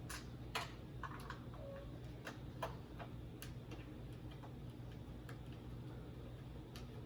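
Irregular light clicks and taps of robot-kit parts being handled and screwed together, the sharpest ones in the first three seconds, sparser and fainter after. A steady low hum runs underneath.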